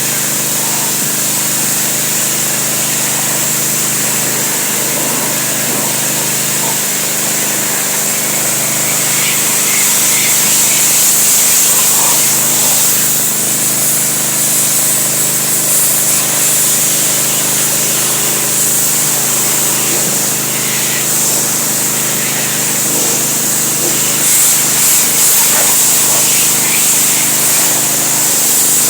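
A small motor running steadily with a loud, even hiss over a constant hum.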